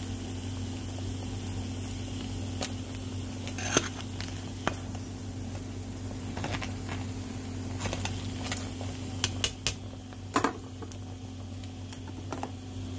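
A pot of seafood boil boiling on the stove over a steady low hum, with scattered sharp clicks and knocks of the ladle and pot, the loudest a little before halfway and again about ten seconds in.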